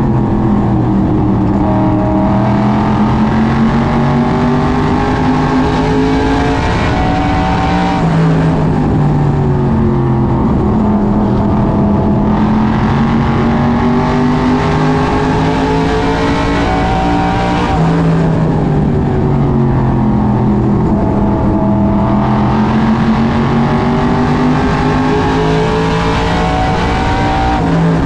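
SK Modified race car's V8 engine heard from inside the cockpit at racing speed. Its pitch climbs for several seconds and then falls away sharply as the throttle is lifted, about every ten seconds, three times: full throttle down each straight, lifting for each turn.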